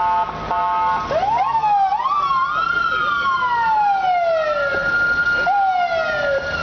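Police car electronic siren: a short steady blast, then quick rising yelps about a second in and a long falling wail over a steady high tone, with the wail rising again and falling near the end.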